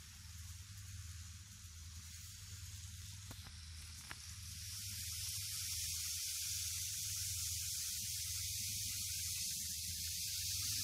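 KATO EF57 N-gauge model locomotive and its coaches running on the track, a soft steady hiss of wheels and motor. It grows louder from about halfway through as the train comes round the loop toward the microphone.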